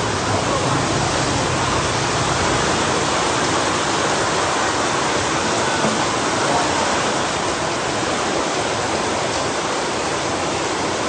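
Steady rush of running water from a large saltwater reef aquarium's circulation.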